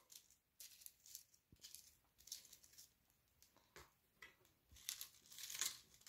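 Faint, scattered clicks and light rattles of clay pebbles being dropped and pressed by hand into a plastic net pot, a little busier near the end.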